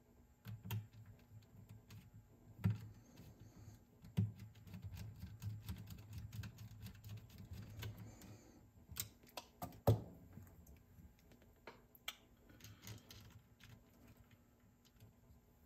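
Light, scattered clicks and taps of a screwdriver and small parts being handled while a cassette deck's tape transport is taken apart, with a few sharper knocks about 3, 4 and 10 seconds in.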